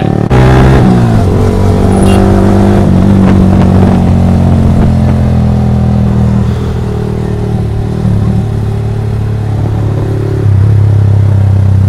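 Yamaha R15 V3's 155 cc single-cylinder engine running under way, picking up revs in the first second and then holding a fairly steady note. It drops back a little past the middle and gets louder again near the end.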